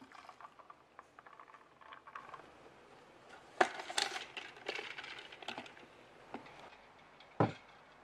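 Plastic tumbler with its lid being handled: light rattling ticks, then a cluster of sharp plastic clicks as the lid is put on and closed. A single thump near the end as the tumbler is set down on a desk.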